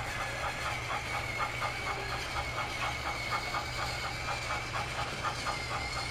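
Battery-powered toy train running on its track: a steady high motor whine with a regular clicking of about three to four beats a second.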